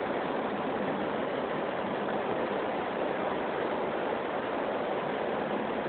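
Steady hiss-like background noise at an even level, with no speech.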